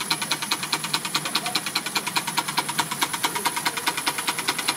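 Miniature model steam engines running off a live-steam boiler, beating at a fast, even rate of about eight strokes a second, with a steady high whine over them.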